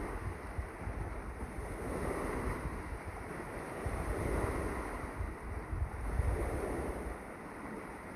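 Sea waves washing in swells that rise and fall, with wind buffeting the microphone in low gusts.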